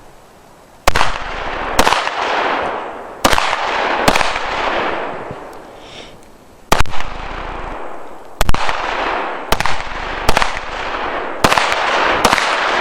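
Semi-automatic handgun fired about ten times at an uneven pace, shots from under a second to about two and a half seconds apart, each crack trailing off in a long echo.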